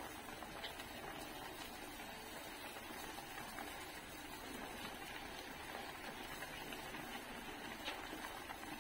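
Soy-and-vinegar pork braise simmering in a stainless steel frying pan: a faint, steady bubbling hiss, with a light tick just after the start and another near the end.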